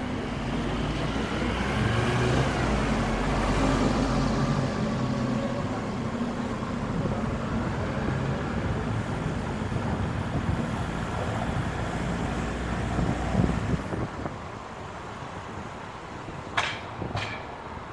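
Car driving on the road: steady engine hum and tyre noise, louder for the first few seconds and easing off about fourteen seconds in. Two short sharp clicks near the end.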